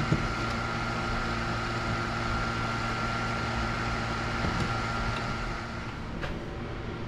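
A steady mechanical hum with a thin high whine, easing off about six seconds in, with a click just after the start and another near the end.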